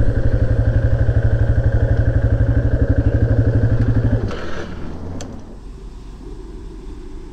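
Motorcycle engine idling with an even, rapid pulse, then stopping about four seconds in, leaving a quieter background with a click.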